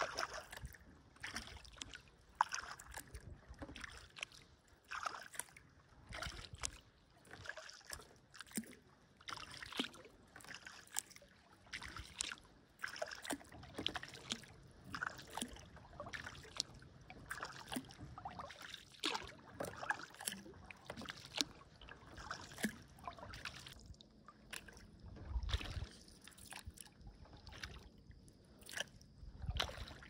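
Kayak being paddled: the blades dip and splash in a loose rhythm of about one stroke a second, with water trickling off them between strokes. Two dull low thumps come near the end.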